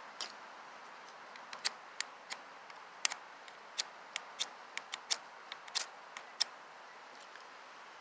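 The small ferrocerium fire-starter rod of an Ozark Trail 6-in-1 multitool is struck again and again against the tool's knife blade. It makes about fifteen short, sharp scrapes at an uneven pace, starting about a second and a half in and stopping a little after six seconds.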